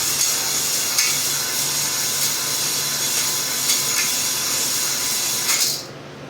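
Cordless drill spinning a bar-style stone cylinder hone in an oiled cylinder bore of a 6.0 LS LQ9 block, the stones grinding steadily against the bore over the drill's motor hum. The drill stops suddenly near the end.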